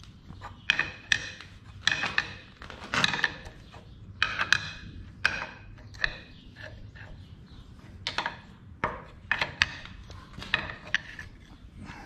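An adjustable wrench clinking and scraping against the steel of a metal lathe's carriage as it is fitted and turned: about a dozen short, irregular metallic clinks with a brief ring after each.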